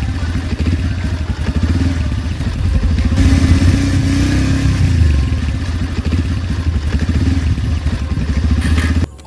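Motorcycle engine running under way, its pitch rising and falling with the throttle around the middle. It cuts off suddenly near the end.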